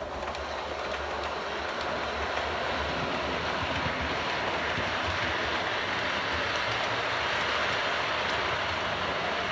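OO gauge model train running along the track: a steady rumble of wheels on rail over a low hum, fading in at the start and then holding level.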